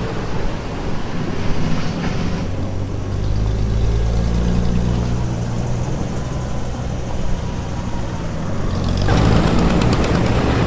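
Antique farm tractor engine running steadily. About nine seconds in the sound changes abruptly to a louder, rattly engine noise.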